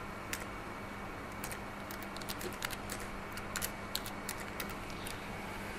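Computer keyboard being typed on: irregular, scattered key clicks as a word is typed, over a faint steady low hum.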